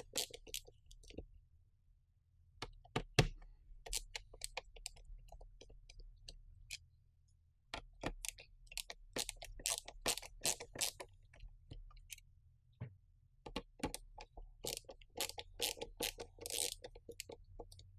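A screwdriver backing security screws out of the plastic case of an Xbox 360 power supply brick, with irregular small clicks, ticks and scrapes of metal on plastic, and the case being shifted and handled.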